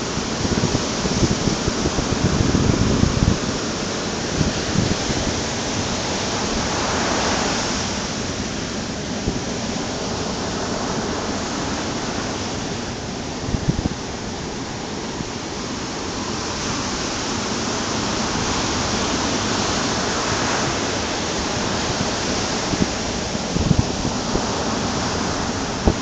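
Ocean surf breaking and washing up a sandy beach: a steady rush of waves that swells and eases as each set comes in, louder about seven seconds in and again later.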